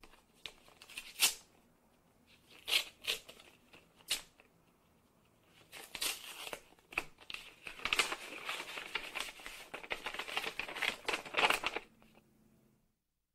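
Airmail paper envelope being handled and torn open: a few sharp paper crackles, then a long stretch of tearing and rustling from about six seconds in that stops shortly before the end.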